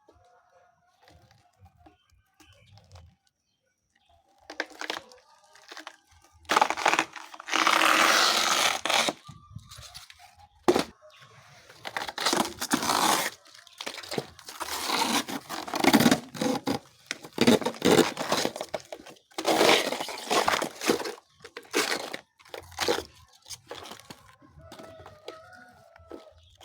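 Fibrous layers of a plantain (matoke) stem being torn and pulled apart by hand in a run of irregular ripping bursts, some short and some drawn out, to get at the soft inner part for pounding into chicken feed.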